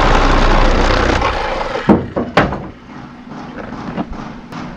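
A loud, steady rushing noise fades out over the first two seconds. Then two sharp knocks and a few lighter taps come as a thin panel is pried and pulled loose from a box truck's back wall.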